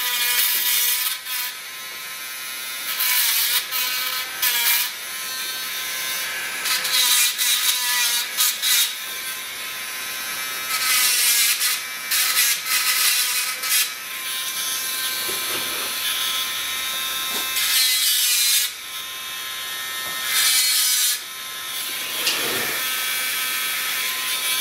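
Hand-held electric engraving tool buzzing against the metal of a VW 002 transaxle in repeated short bursts as it scribes reference marks onto the adjustable brackets.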